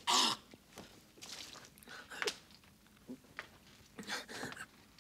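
A person's breathy vocal sounds without words, in several short bursts, the loudest right at the start, with a few faint clicks between them.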